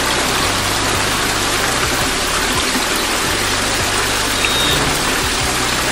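Waterfall: several thin streams of water falling down a steep rock face and splashing onto the rocks below, a steady rushing noise.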